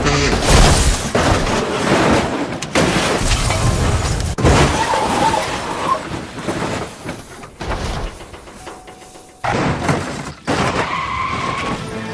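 Car crashes: cars skidding and smashing into things, with crunching impacts and breaking glass, one cut after another. A quieter stretch past the middle ends in a sudden loud crash.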